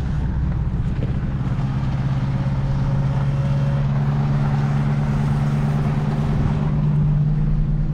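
Tractor engine running steadily, pulling a baler.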